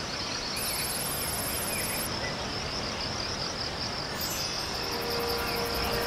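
Crickets chirring steadily in a high, finely pulsing trill over a background hiss. About five seconds in, a steady low note joins.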